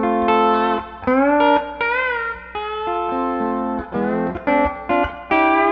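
Electric lap steel guitar played through a Dusky D₂O amplifier: ringing chords that change step by step, with a slide glide about two seconds in and shorter, choppier chords near the end.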